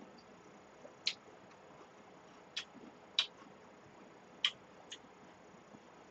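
A few faint, short clicks of eating at the table, about five of them scattered through the pause in talk.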